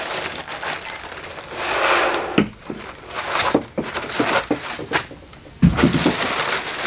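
Plastic bag crinkling and rustling and a foam packing end cap scraping as they are worked off a subwoofer, with several sharp clicks in the middle and one heavy thump about five and a half seconds in.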